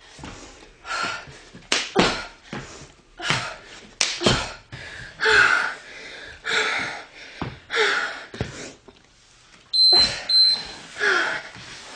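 Hard breathing from a woman exercising, with sharp thuds of feet and hands landing on a wooden floor during side-to-side jump tucks and push-ups. About ten seconds in, two short high electronic beeps sound.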